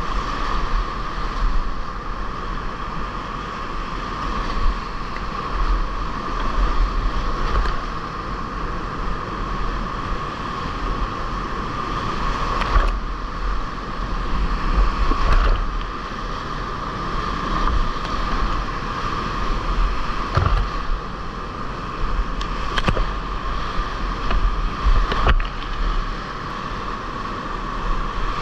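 Whitewater rapids rushing close around a kayak in a heavy, continuous stretch of river. A few sharper splashes stand out over the steady noise.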